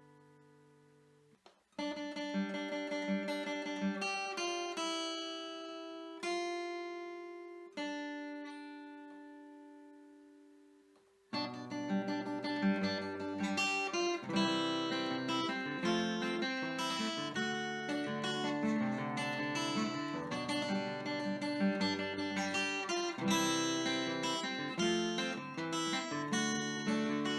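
Background music on acoustic guitar: a few chords left to ring out and fade, then from about eleven seconds in a busier, steady picked pattern.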